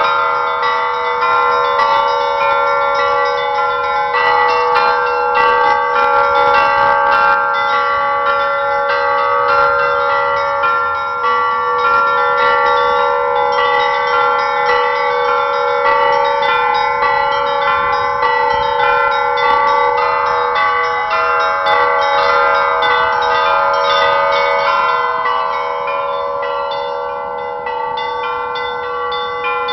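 Set of Russian church bells rung together in a continuous peal: rapid, dense strikes on the smaller bells over the steady ringing of the larger ones.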